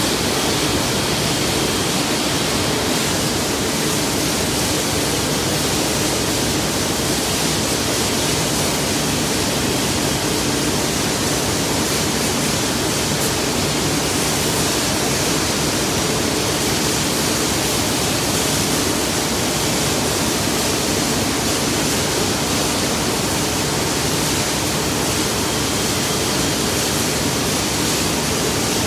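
Steam locomotive R707 blowing off steam from its safety valves: a loud, steady hiss that holds without a break.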